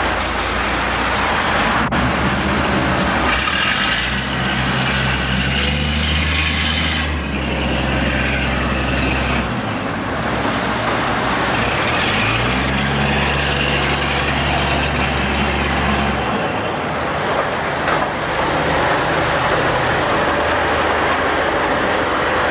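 Crew boat's engine running under way, with a steady rush of wind and water over it. The engine's low hum shifts up and down in pitch several times.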